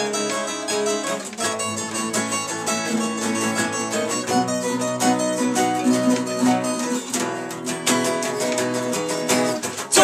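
Several acoustic guitars playing together, strummed and picked chords and notes, in an instrumental stretch of a song with no singing.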